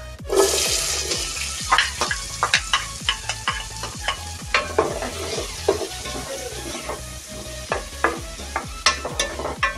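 Chopped onions dropped into hot oil with cumin seeds, hissing as they hit the oil just after the start, then sizzling steadily while a spoon scrapes and knocks against the enamel pot as they are stirred.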